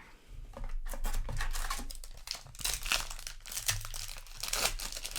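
Crinkling and rustling of plastic packaging as Magic: The Gathering trading cards are handled, with irregular crackles.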